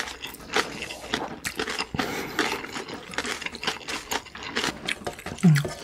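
Two people chewing mouthfuls of kimchi-wrapped instant noodles close to the microphone, with irregular mouth clicks and smacks. A short low hum near the end.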